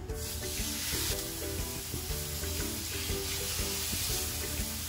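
Ribeye steaks searing in a smoking-hot ridged grill pan with oil. The sizzle starts suddenly as the meat goes in and holds as a steady hiss. It is the sign the pan was hot enough: the searing sound the cook was listening for.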